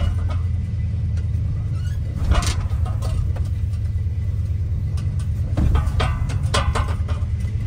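1959 Chevrolet Biscayne's engine pulling the car slowly in a low gear, heard from inside the cabin as a steady low rumble. A couple of brief louder noises come about two and a half and six seconds in.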